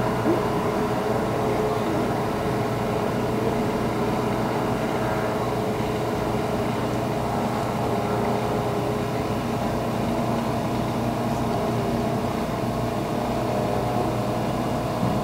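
Outboard racing hydroplane's engine running at speed, a steady drone of several tones that hardly changes in pitch.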